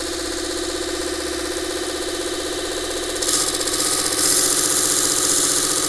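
Miniature bench belt sander running with a steady motor whine. From about three seconds in, a small wooden piece is pressed against the belt and a higher sanding hiss is added.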